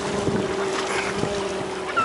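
Boat motor running with a steady, even hum, wind buffeting the microphone. A few faint chirps about a second in and a short falling bird call near the end.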